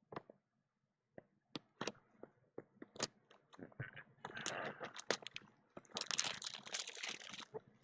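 Plastic shrink-wrap on a sealed box of trading cards being slit with a blade and torn off: a run of sharp snaps and clicks, then crinkling and tearing in two longer stretches toward the end.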